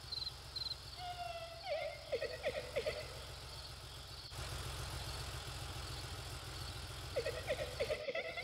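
Cartoon night ambience: crickets chirping over a low steady hum. Two short warbling, pulsed calls sound, one about a second in and another near the end.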